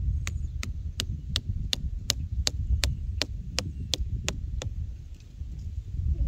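Light, sharp taps of a knife striking a thin wooden stake to drive it into dry soil, very even at about three taps a second, stopping about four and a half seconds in. A steady low rumble runs underneath.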